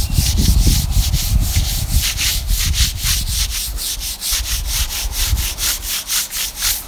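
Abrasive grip pad scrubbed back and forth along the grain of stripper-wet timber: a quick, even rasping at about five strokes a second, working the last remnants of old finish out of the grain. A low rumble sits underneath in the first few seconds.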